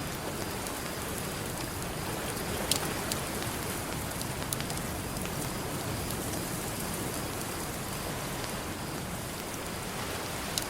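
Campfire crackling with occasional sharp pops, the strongest about three seconds in, over a steady hiss of ocean surf.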